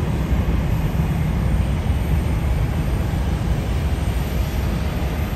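McDonnell Douglas MD-11F trijet freighter's jet engines at takeoff power as it climbs out: a steady, deep rumble.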